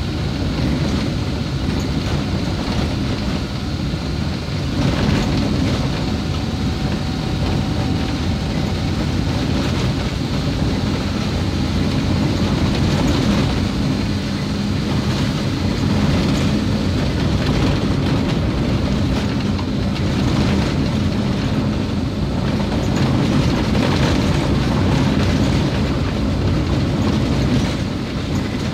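Steady rumble of a vehicle driving on a rough, partly unsealed road, heard from on board: engine and tyre noise, loudest in the low range, with no big changes.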